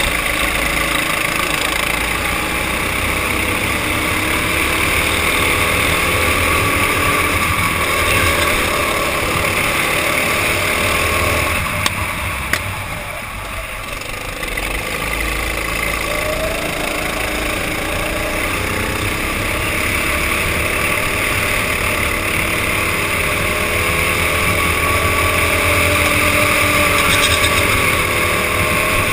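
Go-kart engine running under race load, heard from a helmet-mounted camera, its pitch rising and falling as the kart accelerates and lifts through corners. About twelve seconds in the engine note drops away briefly, with a couple of sharp clicks, then picks up again.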